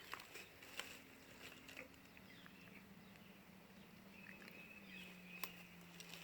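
Near silence: faint room or outdoor tone with a few soft clicks.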